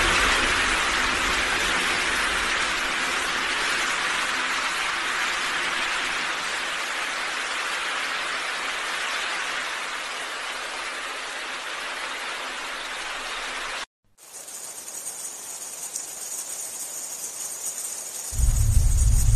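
A dense, even rain-like hiss that slowly fades and cuts off abruptly about two-thirds of the way in. A fainter hiss with a thin high whine follows, then a loud low hum starts near the end.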